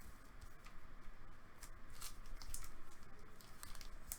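Trading cards and plastic card holders being handled on a table, making a few faint, light clicks and soft rustles.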